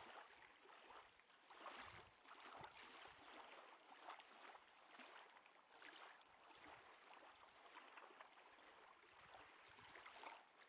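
Faint sound of sea water, an uneven wash of waves.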